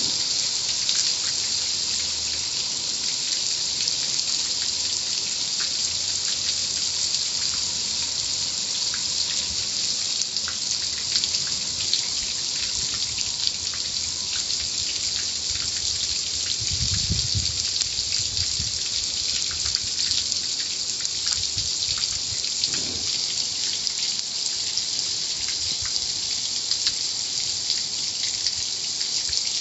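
Car wash water spray pelting steadily, a constant hiss scattered with spattering drips. A brief low rumble comes a little past halfway.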